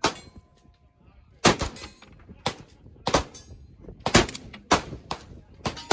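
Rifle gunshots, about seven sharp reports at irregular intervals, half a second to a second and a half apart.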